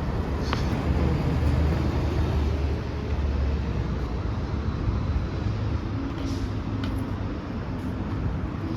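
A transit bus engine running with a steady low rumble, loudest for the first three seconds, amid street traffic.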